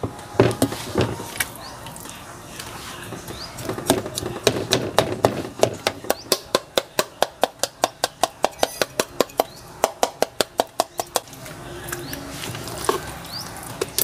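A knife tip jabbed again and again through slices of raw pork onto the plate, sharp taps at about four a second with a pause early on and stopping near the end. The meat is being pricked full of holes so the marinade soaks in.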